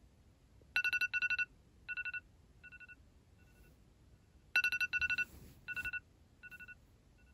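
Smartphone alarm going off: rapid electronic beeping in short trills, each phrase starting loud and fading away over a few quieter groups, then starting over about four seconds later.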